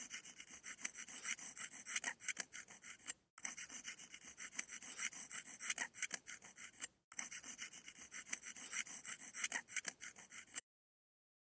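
Dental plaque scraper scratching in quick, squeaky repeated strokes. It comes in three runs of about three and a half seconds, with two brief breaks between them, and stops about a second before the end.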